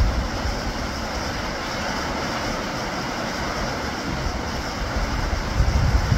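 Heavy rain pouring steadily onto trees and foliage, a dense even hiss. Gusts of wind rumble on the microphone near the end.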